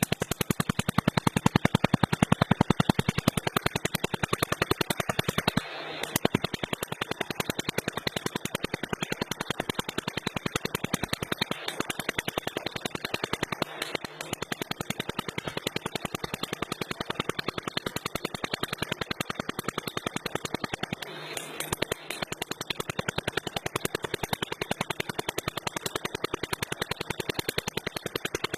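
Pulsed laser welder firing in rapid, evenly spaced sharp clicks, one snap per laser pulse, stopping briefly a few times before starting again.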